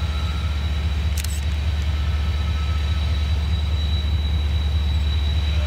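Union Pacific freight train's diesel locomotives approaching, a steady low engine rumble with a faint steady high whine above it. A brief clatter comes about a second in.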